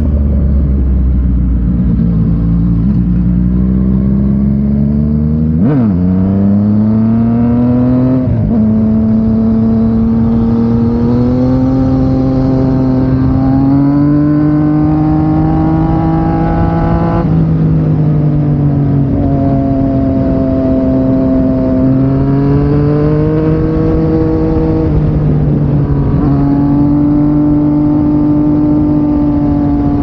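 Yamaha MT-09 847 cc three-cylinder engine through an Akrapovic exhaust, accelerating on the move. The pitch climbs, drops suddenly at gear changes about six, eight and seventeen seconds in, and rises and eases back with the throttle.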